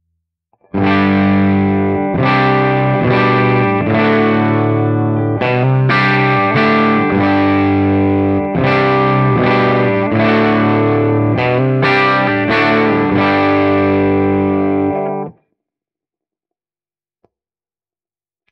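Electric guitar played in a run of chords through a valve amplifier built on the brown-face Fender Bassman normal-channel circuit, set to cathode-biased output with negative feedback off. The chords start about a second in and cut off abruptly about three seconds before the end, followed by a single faint click.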